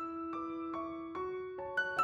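Background piano music: a slow melody of single notes, each one ringing and fading.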